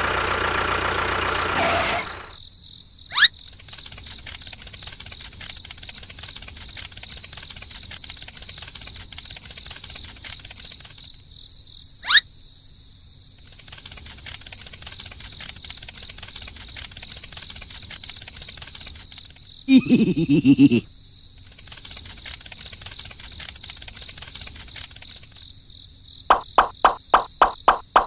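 A small motor running steadily cuts off about two seconds in, leaving a steady high insect buzz. Over it come two short rising whistles, a low rattling burst of about a second, and near the end a quick run of about ten clicks.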